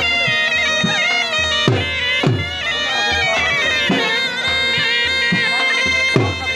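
Bagpipes playing a melody over a steady drone, with irregular drum beats.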